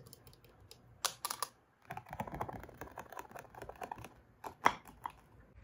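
Fingernails tapping: first on a plastic plug in a wall socket, then tapping and scratching across a printed portrait board on the wall. There is a cluster of clicks about a second in, a scraping stretch in the middle, and one sharp tap near the end.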